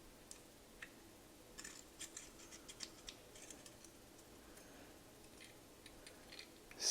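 Faint, scattered small metallic clicks and taps of vintage automatic petrol lighter parts being handled and fitted by hand, as the thumb lever is worked into place in the mechanism.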